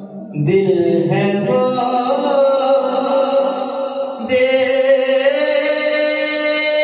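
A young man's solo voice singing a naat, an Urdu devotional poem, into a microphone, with long held, ornamented notes that glide in pitch. The voice comes in about half a second in, and a new phrase begins about four seconds in.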